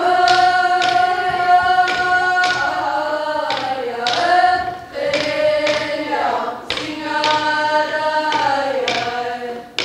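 Greenlandic drum song: young women's voices singing long held notes that slide down, with a Greenlandic frame drum (qilaat) struck with a stick at a slow beat, about once a second.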